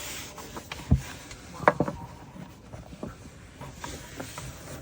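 Scattered light knocks and taps over faint rustling, with one sharper thump about a second in and a short cluster of knocks a little later.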